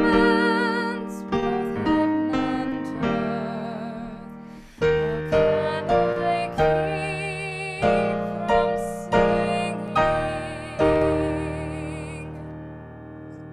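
Piano playing a slow line of chords with a singing voice holding notes with vibrato above it. It ends on a final chord that fades out about a second before the end.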